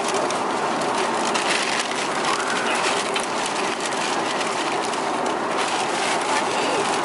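Thin plastic carrier bag rustling and crinkling as it is handled close to the microphone, with a steady airliner cabin hum beneath.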